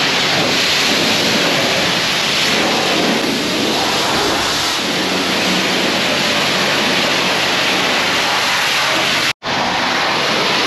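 Car-wash pressure wand spraying water onto a dirt bike: a steady, loud hiss of spray. It is broken by a sudden brief drop-out near the end.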